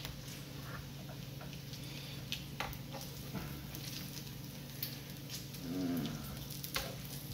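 Bacon strips sizzling on an electric griddle, with scattered crackles and sharp clicks of metal tongs as the strips are turned. A brief low vocal hum sounds about six seconds in.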